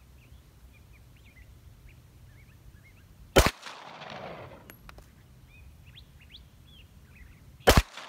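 Two shots from a Benelli MP3S 9mm Parabellum target pistol, about four seconds apart, each followed by a rolling echo. Birds chirp faintly between them.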